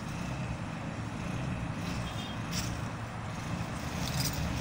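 Engine of a homemade amphibious flood-rescue motorbike running steadily as it moves out on the water, a low hum under a steady hiss.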